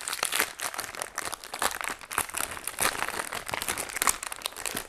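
Cookie packet wrapper crinkling and crackling as it is handled and opened by hand, in quick irregular rustles.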